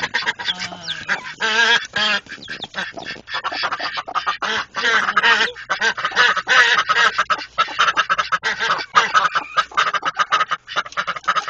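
Broody mother hen clucking steadily and rapidly in wavering calls, with her chicks cheeping.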